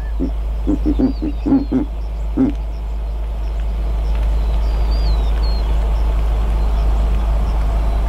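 Verreaux's eagle-owl (giant eagle owl) giving a quick series of short, low hoots in the first couple of seconds, after which a steady rushing noise takes over. A small bird chirps faintly a few times.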